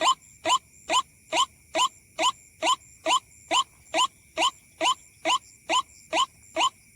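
White-breasted waterhen (ruak-ruak) call: a steady series of loud, short rising notes, about two a second, repeated with machine-like regularity.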